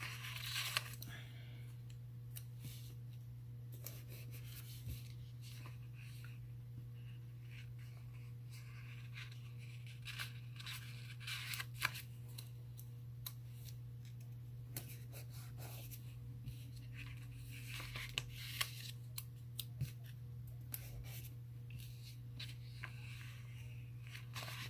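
Sticker sheets and planner paper being handled: scattered soft rustles and small clicks as snowflake stickers are peeled off the sheet and pressed onto the pages, over a steady low hum.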